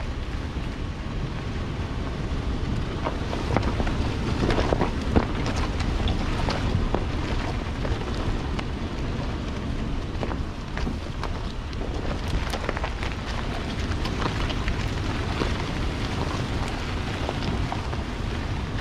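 Off-road vehicle driving along a rough dirt-and-gravel trail: steady engine and tyre rumble with wind buffeting the microphone, and scattered knocks and rattles from the bumpy ride, thickest about four to seven seconds in.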